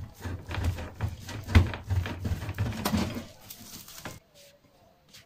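Block of cheese being grated on a stainless steel box grater, quick back-and-forth scraping strokes about three a second, with the grater knocking on a plastic cutting board. The grating stops about four seconds in.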